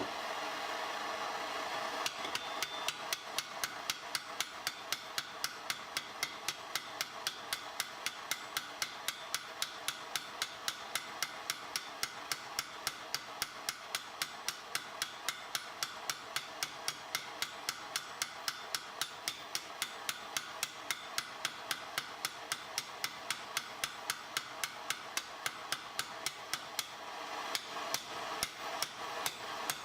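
Steady, rapid hammer blows on metal, about three to four a second, peening over rivets to join steel treadle parts. The blows start about two seconds in and become fewer and uneven near the end.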